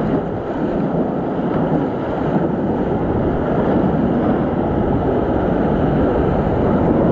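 Whitewater rapids rushing around an inflatable raft, with waves breaking over the bow and splashing onto the tube: a steady wash of water noise.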